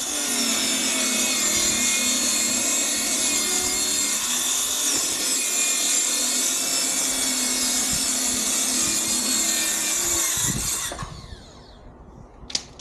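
Circular saw cutting a wooden board lengthwise, its blade running at a steady pitch through the cut. About eleven seconds in it is released and spins down with a falling whine, with a low thump as the cut finishes. A single short sharp click comes near the end.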